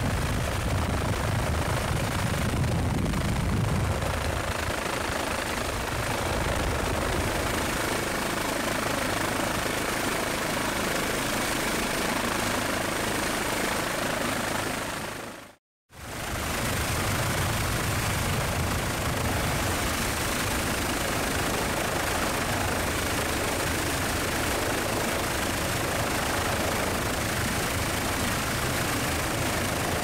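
Helicopter rotor and turbine noise heard from aboard the aircraft, a steady loud rumble with a hiss over it. It cuts out for a moment about halfway through, then carries on unchanged.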